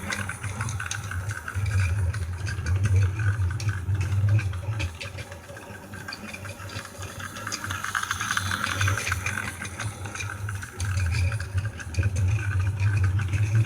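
Electric train running past with a low rumble and rattling. The rumble swells in the first few seconds, eases around the middle, then grows again near the end.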